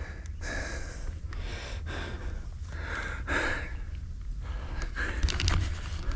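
A person breathing loudly close to the microphone, about one breath a second, over a steady low rumble. A run of sharp clicks and rattles comes near the end.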